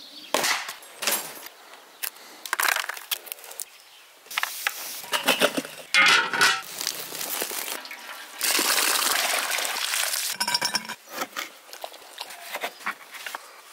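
A quick run of separate work sounds. An axe strikes firewood with a sharp crack near the start. A metal pot lid clanks and rings about six seconds in, the loudest moment. A steady hiss then runs for about two seconds.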